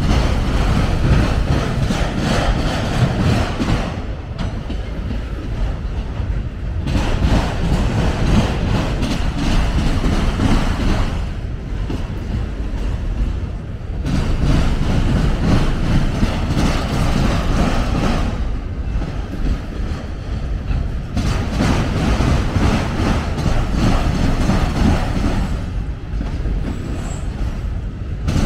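CSX autorack freight train rolling past: a steady rumble and clatter of wheels on rail that swells and eases in a slow cycle about every seven seconds.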